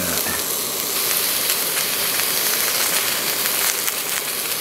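Steak sizzling as it sears in a frying pan over a canister camp stove: a steady, even hiss.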